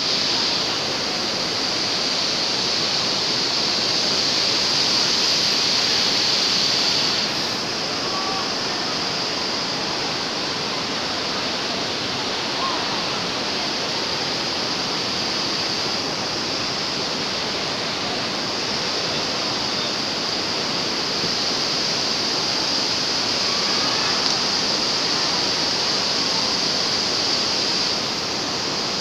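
Fast-flowing floodwater rushing in a steady torrent, a little quieter from about seven seconds in.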